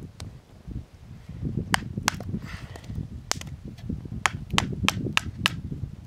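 Wood campfire crackling: a run of sharp pops and snaps, coming quicker in the second half, over a low rustling.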